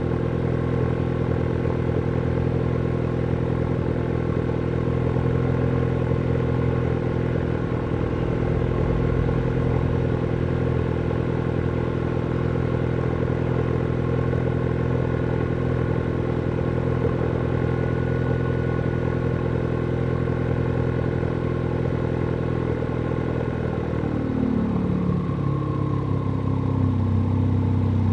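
Ford Focus ST's 2.0-litre turbocharged four-cylinder idling, heard at the tailpipe of a straight single pipe with the muffler and resonator deleted. A steady exhaust drone, its note shifting slightly near the end.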